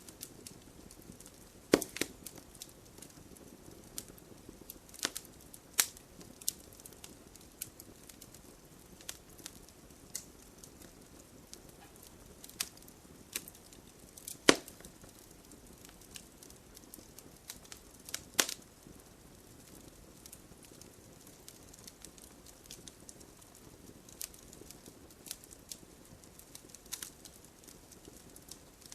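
Wood fire crackling: irregular sharp pops and snaps, a few loud cracks among many small ones, over a low steady hiss of burning.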